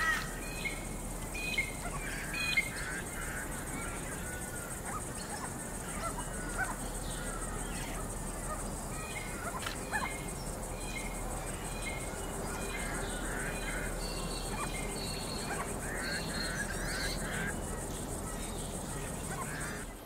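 Grey-crowned babblers calling: repeated short nasal, honking calls in chattering bursts, busiest near the start and again in the second half, over a steady high-pitched hiss.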